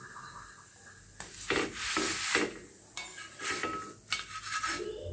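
A parotta being scraped and slid across a hot dosa tawa, with rough rubbing strokes against the pan starting about a second in and coming again in a second run of strokes.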